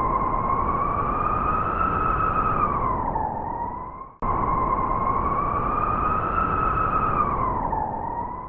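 A long, wavering howl over a steady hiss. It holds one pitch, rises slightly, then sags and recovers. It cuts off abruptly about four seconds in, then plays again identically.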